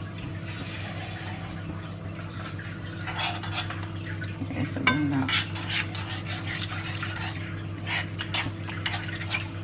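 A utensil scraping and clicking against a frying pan as a thickening sweet and sour sauce with capsicum and carrots is stirred, over a steady low hum.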